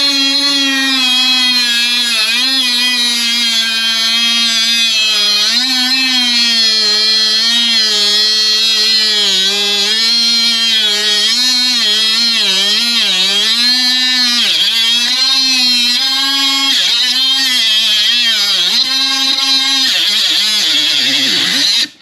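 Milwaukee 12-volt brushless cut-off tool running while cutting. Its high motor whine sags in pitch again and again as the disc bites and recovers as it eases, then cuts off sharply near the end when the trigger is released and the brake stops it.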